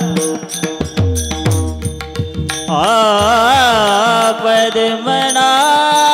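Kirtan accompaniment. For the first two and a half seconds there are quick drum strokes with deep booming beats and cymbal clashes. Then a singer's voice glides in an ornamented, wordless line over steadily held harmonium-like tones.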